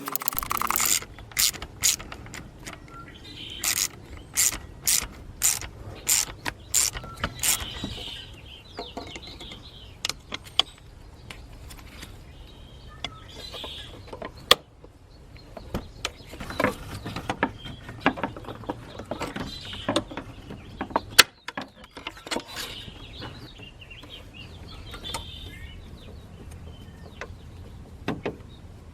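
Hand tools working on metal engine parts: a run of sharp clicks, about two a second for the first several seconds, then scattered clicks and clanks with a couple of louder knocks.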